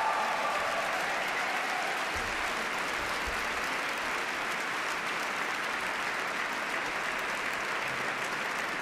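Concert audience applauding, a steady sustained clapping after a song.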